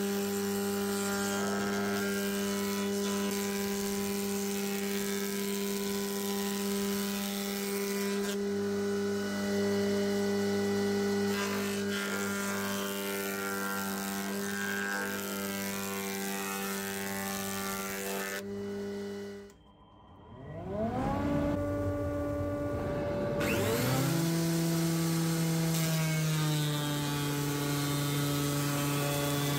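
Electric jointer-planer running with a steady hum and the hiss of its cutter head as a wooden beam is fed across it. About twenty seconds in the sound drops away briefly, then a Metabo thickness planer's motor spins up with a rising whine and settles into a steady, lower-pitched run.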